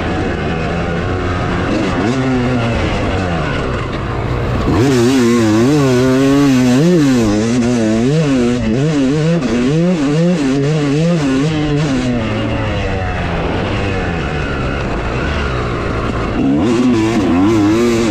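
Yamaha YZ250 two-stroke dirt bike engine revving hard, its pitch rising and falling again and again with the throttle, at its strongest from about five to twelve seconds in.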